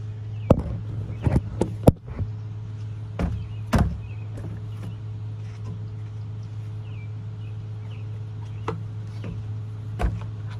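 Several sharp knocks in the first few seconds as the phone is set down on the wooden deck boards, then two lighter knocks near the end, all over a steady low hum.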